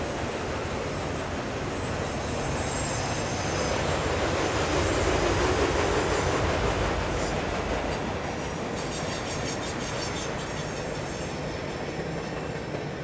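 Freight cars rolling past on the rails: a steady rumble of wheels on track, loudest a little before the middle, with high-pitched wheel squeal over it that is strongest in the later seconds.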